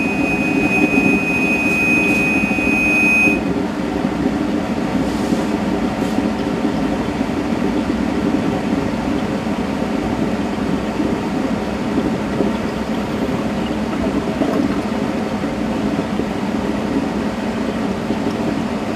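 EDM machine's low-dielectric-level alarm sounding a steady high tone, which is switched off about three seconds in, over a steady machine hum. The alarm signals that the dielectric fluid has been drained from the machining chamber.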